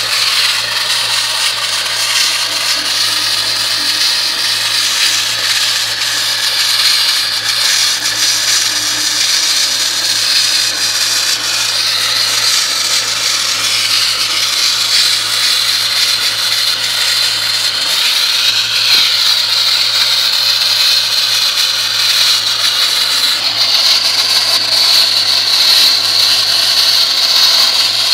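Wet-blasting nozzle jetting a water-and-sand mix at about 90 psi onto a metal car body panel: a loud, steady hiss as it strips the paint to bare metal, with a low hum beneath. The hiss grows a little brighter in the last few seconds.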